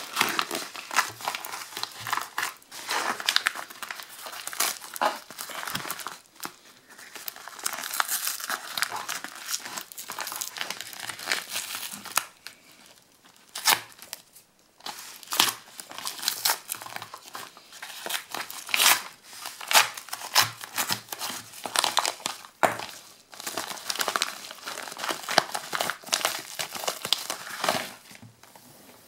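Brown paper parcel wrapping and its plastic customs pouch being torn open and crumpled by hand: irregular crinkling and ripping, with a short lull about halfway through.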